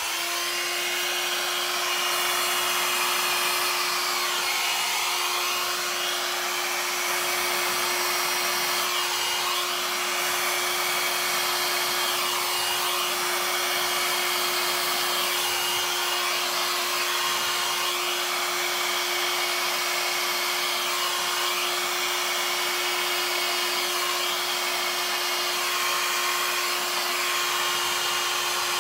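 Handheld hair dryer blowing steadily, a rush of air over a constant hum, its tone wavering slightly as it is moved about. It is blowing a puddle of fluid acrylic paint outward across a canvas (the bloom technique).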